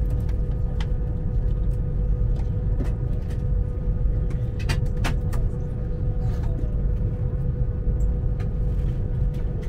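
Inside an Avanti West Coast Pendolino electric train running slowly into a terminus: a steady low rumble of the carriage on the rails under a constant hum, with scattered sharp clicks and a brief squeak from the wheels and track.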